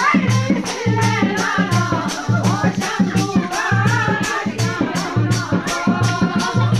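Folk dance music with singing over a steady, repeating low beat, and a rattle keeping time at about four strokes a second.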